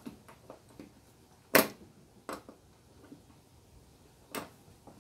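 Several short sharp metal clicks and knocks, the loudest about a second and a half in, from hands working the rear wheel hub on a riding lawn mower's axle.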